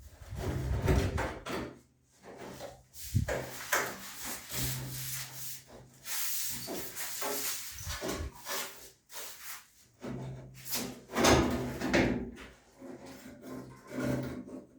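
Irregular rubbing and scraping sounds with occasional knocks, like objects being handled and moved against a hard surface.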